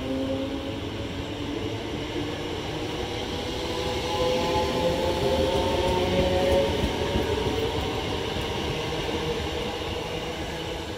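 A Greater Anglia electric multiple-unit train, two units coupled, running past and away along the track: wheel-on-rail rumble with a motor whine that rises slightly in pitch. It is loudest in the middle and fades toward the end.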